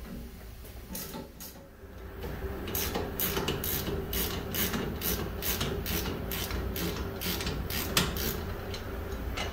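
Ratchet wrench clicking in repeated back-and-forth strokes, about three clicks a second after a quieter start, as a part of the hydraulic swing clamp that has been broken loose is unscrewed.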